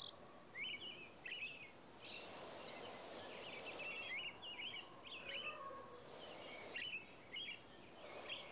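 Birds chirping faintly in the background: a steady run of short, high chirps. Under them, a soft hiss and scrape from a spoon stirring masala in a frying pan, swelling twice.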